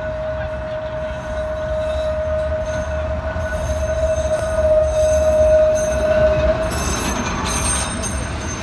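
Blackpool heritage double-deck tram running in on a curve, its wheels squealing on the rails in one steady high tone over a low rumble. The squeal cuts off about two-thirds of the way through, followed by a short hiss.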